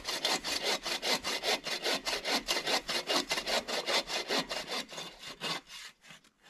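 Hand saw cutting wood with quick back-and-forth rasping strokes, several a second, stopping about five and a half seconds in.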